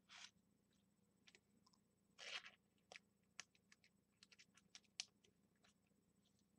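Near silence with faint, scattered light clicks and a short soft rustle about two seconds in: small handling noises.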